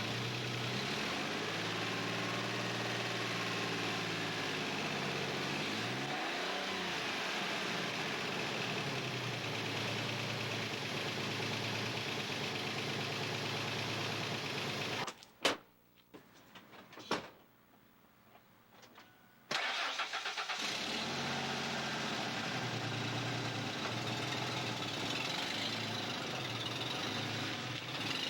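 Ford F-150's 4.2-litre V6 engine running after its fuel injectors were replaced. About halfway through it goes quiet for a few seconds with a couple of clicks, then is cranked and starts again, settling into a steady idle.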